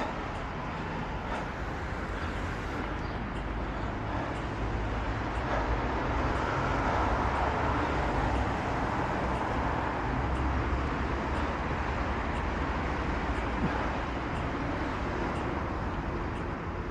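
Road traffic noise, with a vehicle passing that swells louder in the middle and fades again.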